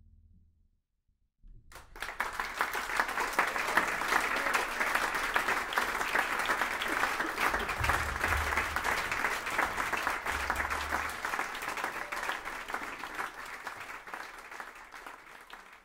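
Audience applauding, breaking out about a second and a half in after a faint low tone dies away, and thinning out near the end.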